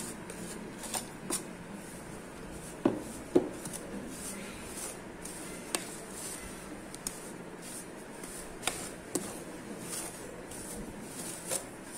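A spoon stirring powdered sugar into ground semolina in a bowl: soft scraping with scattered light clicks and knocks of the spoon against the bowl, over a faint steady hum.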